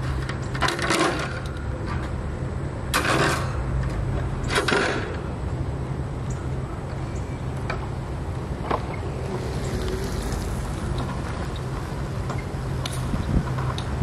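Wire pet cage being put together: its metal wire top rattles and clatters against the plastic tray in three short bursts, then a few lighter clicks, over a steady low hum.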